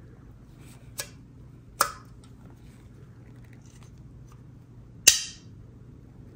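Sharp clicks and snaps of takeout food packaging being handled, three in all, the one about five seconds in the loudest with a brief crackle after it.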